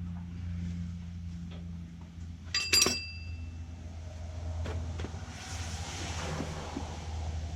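A steady low hum throughout, with a short cluster of sharp metallic clinks that ring briefly a little under three seconds in, like a metal tool or part striking metal; a softer rushing noise follows near the end.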